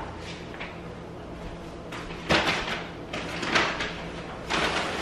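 A package being handled and opened at a kitchen counter: several short, sharp rustles and clunks, the loudest about two and a half and three and a half seconds in, over a steady low hum.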